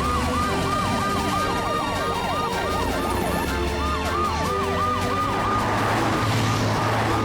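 Several cartoon emergency-vehicle sirens sound together, each rising and falling quickly in a repeating yelp, over a steady low backing. A rushing noise swells about six seconds in.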